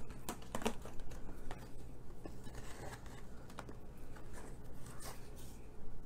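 Sparse light clicks, taps and rustles from a clear plastic tray and a cardstock strip being handled over white embossing powder.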